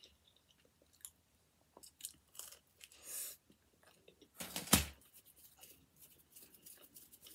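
A person chewing a bite of veggie pizza: soft wet mouth sounds and small crunches, with one louder crunch about halfway through.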